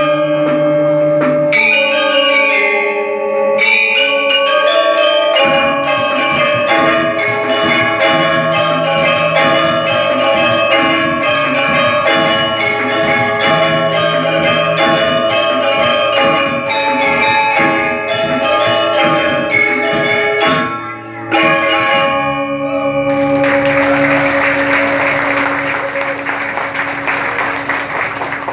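Ensemble music led by mallet percussion (marimba- and glockenspiel-like bells) playing quick runs of notes over a low sustained part. For the last five seconds a broad noisy wash takes over while one note is held.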